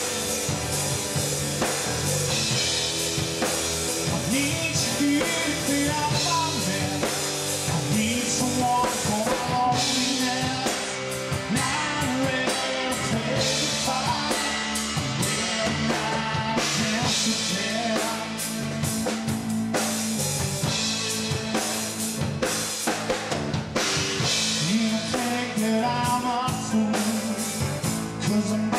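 Rock band playing live: electric guitars over a drum kit keeping a steady beat of bass drum and snare, the playing growing busier about ten seconds in.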